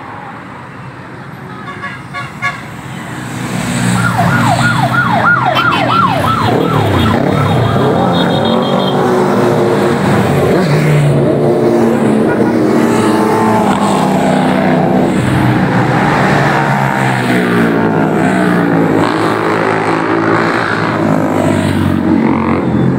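Vehicles passing close by on the road, their engines loud and rising and falling as they go by. From about four to seven seconds in, a siren sounds a rapid series of falling whoops.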